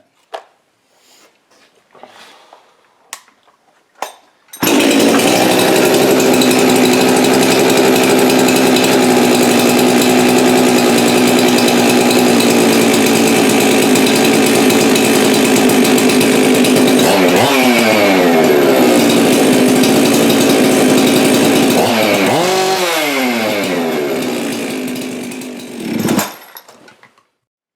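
A few faint clicks, then a Jonsered CS2165 chainsaw built with a Husqvarna 372XPW 51.4 mm cylinder comes in suddenly about four and a half seconds in, running steadily at high revs. The revs fall away twice, and near the end it dies down with a last short blip and stops. It is being run to check the carburettor after richening, and the owner judges the high-speed mixture good as it is.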